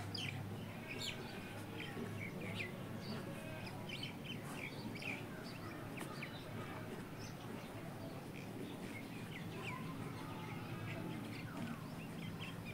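Faint chirping of small birds in the background, many short scattered calls, over a low steady hum of room tone.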